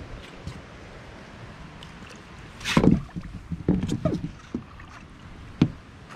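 A short splash about three seconds in as a snook is let back into the water, then a few knocks and footsteps on the fibreglass deck of a small boat, with light wind noise.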